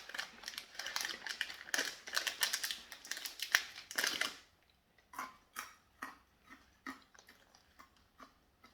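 A crunchy snack being bitten and chewed: a dense crackle for about the first four seconds, then separate crunches of chewing a little over two a second.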